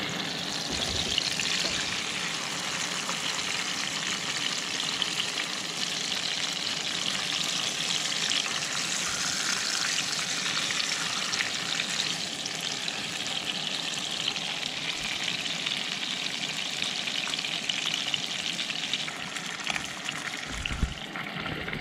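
Brook trout fillets frying in oil in a skillet: a steady sizzle.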